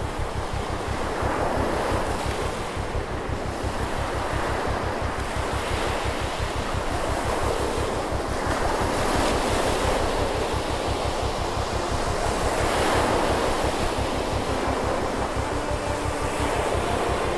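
Wind buffeting the microphone with a steady low rumble, over small waves washing on an estuary shore in slow swells about every four seconds.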